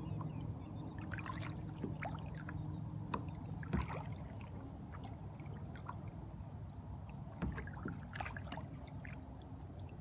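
Small waves lapping against a small boat's hull, with irregular little splashes over a steady low hum.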